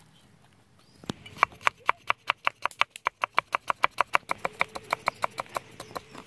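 A cleaver chopping lemongrass stalks on a wooden cutting board in quick, even strokes, about six a second, starting about a second in.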